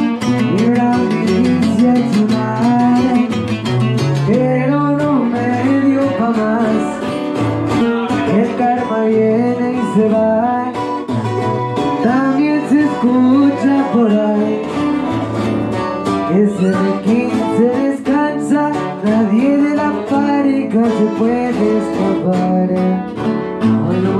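A live acoustic group playing: several acoustic guitars, including a twelve-string, strummed and picked with a moving low line, and a male voice singing through a microphone.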